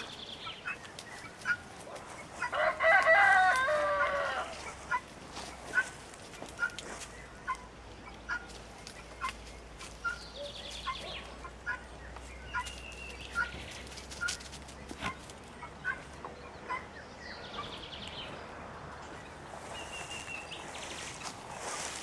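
A rooster crows once, one long call about three seconds in, the loudest sound here. After it comes a long run of short calls repeated about twice a second, with small birds chirping now and then.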